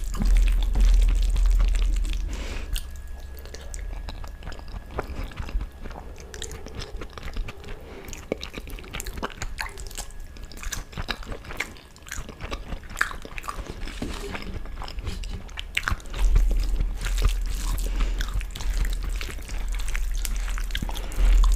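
Close-up eating sounds of dal and rice eaten by hand: chewing with many small wet mouth clicks, and rice being squished into dal with the fingers on the plate near the end.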